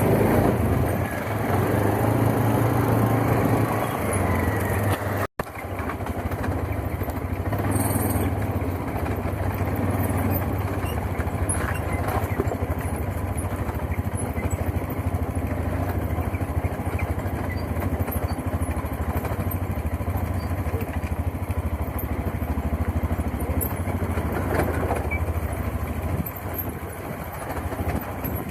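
ATV engine running steadily while being ridden, a continuous low drone. The sound cuts out for an instant about five seconds in.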